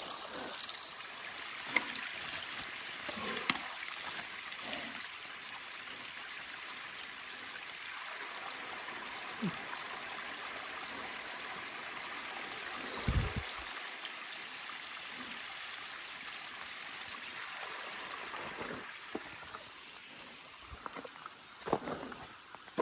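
Creek water running with a steady trickling rush. Near the end the water sound eases and a series of sharp scuffs and knocks comes in.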